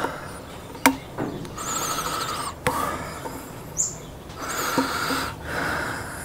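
Hand work on a small fuel hose: rubbing and scraping with a few sharp clicks as a spring clip is worked onto the rubber fuel line. Short high squeaky chirps come and go between the rubbing.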